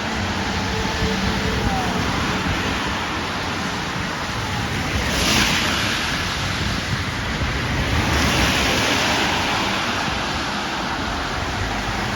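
Steady hiss of rain and a wet road. Two swells of tyre spray rise and fall about five and eight seconds in as vehicles pass on the wet road.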